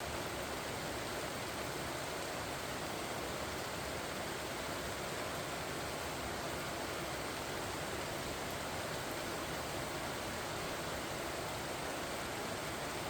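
Steady rain falling on pumpkin vines, an even hiss of raindrops on the leaves.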